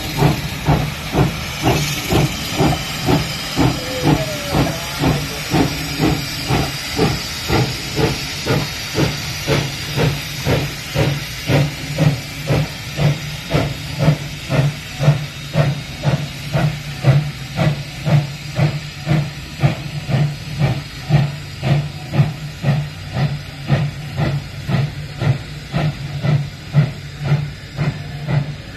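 Woodstown Central No. 9 steam locomotive working under load as it shoves a freight train. Its exhaust chuffs in an even beat of about one and a half a second over a steady hiss of steam, and the hiss is brightest in the first few seconds.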